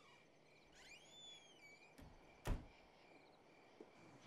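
Faint night ambience: a steady high insect-like tone, a few sweeping whistled calls in the first second and a half, and one sharp click about two and a half seconds in.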